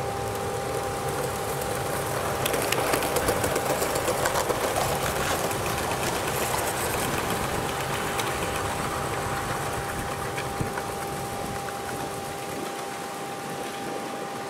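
A Gauge 1 live steam model locomotive and its goods wagons running on the garden-railway track: a fast rhythmic chuffing and wheel clatter, loudest a few seconds in and fading as the train moves away.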